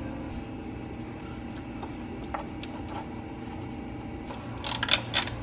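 A hand ratchet clicking as the 10 mm bolt of a VANOS solenoid is tightened on a BMW N55 engine, over a steady low hum. A few faint clicks come first, then a quicker, louder run of clicks near the end.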